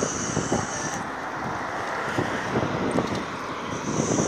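Wind buffeting the phone's microphone in irregular gusts over a steady rushing background.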